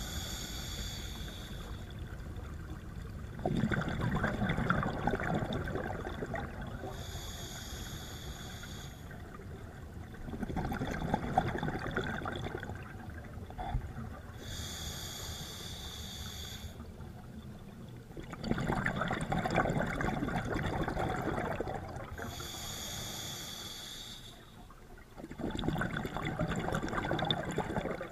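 Scuba diver breathing through a regulator, heard underwater: a hissing inhale from the regulator followed by a longer rush of exhaled bubbles, about four breaths, one roughly every seven seconds.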